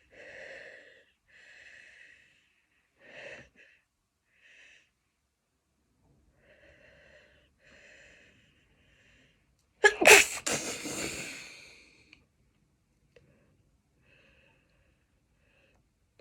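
A person's series of short, wheezy catching in-breaths building up, then one loud sneeze about ten seconds in that trails off over the next two seconds.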